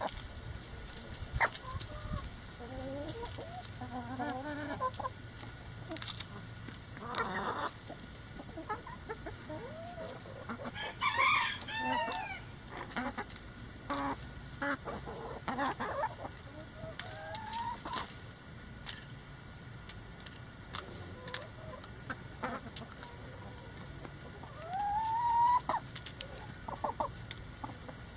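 A flock of hens and roosters clucking and calling in short squawks and sliding notes, with scattered sharp taps. A louder, harsher call comes about eleven seconds in and a loud rising call near the end.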